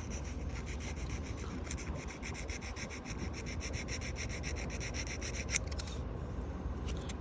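P80 grit sandpaper rubbed by hand over the kerbed edge of an alloy wheel rim in quick, even back-and-forth strokes, smoothing out the kerb damage. The strokes stop about six seconds in, with a few lighter ones near the end.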